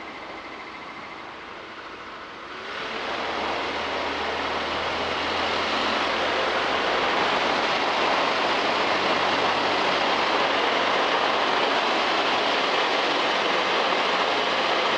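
Zenith STOL CH 750 light aircraft's engine and propeller heard from inside the cockpit, throttled up to takeoff power about two and a half seconds in. The noise builds over the next few seconds, then holds steady and loud through the takeoff roll.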